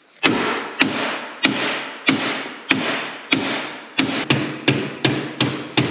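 Steady hammer blows on a snowmobile's ski spindle, metal on metal, each strike ringing briefly, to drive out a rust-seized spindle bolt. The blows come about every half second at first and quicken to nearly three a second near the end.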